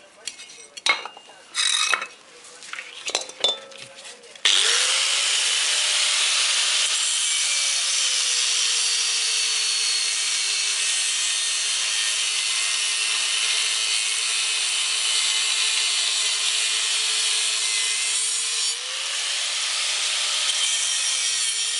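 A few handling knocks and clicks, then about four and a half seconds in an angle grinder starts straight into cutting the steel housing of a refrigerator compressor: a steady, loud grinding hiss over the motor's whine. The whine sits a little lower through the cut and rises briefly near the end.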